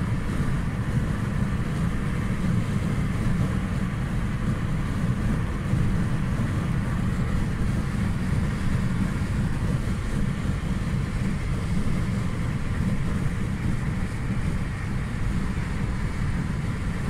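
A car travelling fast, at about 120 km/h, heard from inside the cabin. The engine and road noise make a steady low rumble that holds level throughout.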